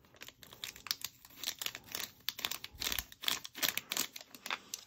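Small foil sachet crinkling as it is shaken and tapped to sprinkle fizz powder out, a rapid, irregular run of light crackles and ticks.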